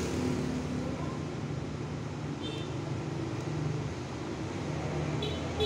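Hot air rework station blowing steadily onto a phone's charging connector, melting the solder so the connector can be lifted off the board.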